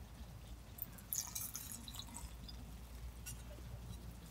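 Liquid poured from a glass bottle into a metal camping mug: a short splashing pour about a second in, followed by a few faint drips.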